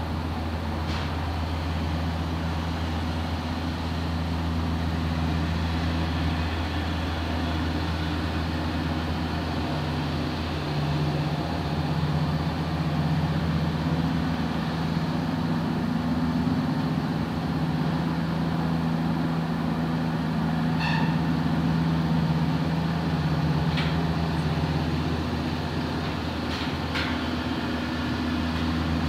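Machinery running with a steady low hum, the tone of the hum shifting slightly about a third of the way in and again near the end, with a few faint clicks in the later part.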